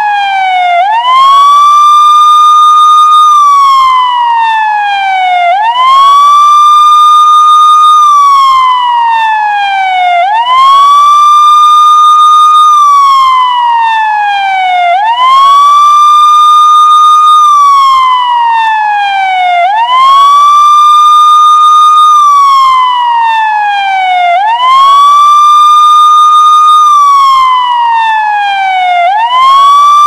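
Electronic police siren sounding a slow wail: each cycle sweeps quickly up, holds a steady high tone for about a second and a half, then slides slowly down, repeating about every five seconds.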